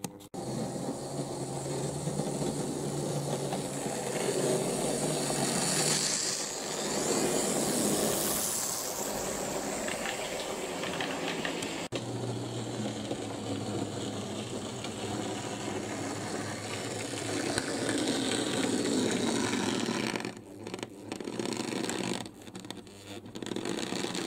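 Model train running on the track: a small electric motor's steady whine with wheel and rail rattle, and a brief break about halfway through.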